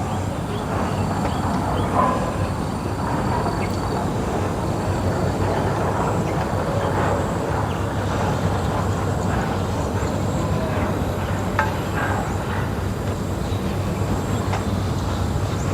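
Steady low rumbling outdoor background noise with a few faint clicks and a faint high steady tone.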